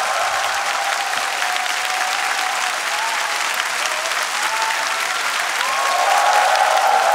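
Large studio audience applauding, with cheering voices over the clapping that grow a little louder about six seconds in.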